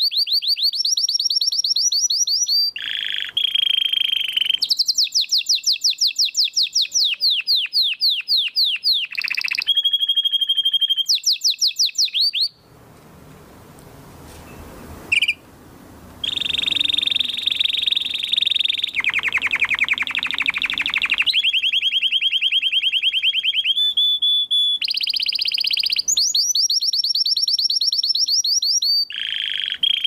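Domestic canary singing: long rolling trills of rapidly repeated high notes, one tour after another at changing pitches, broken by a pause of a few seconds about halfway through.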